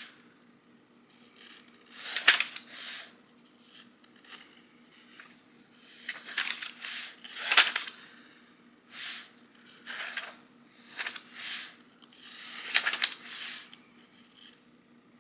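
Pages of a paperback book being leafed through: a run of irregular paper rustles and flicks.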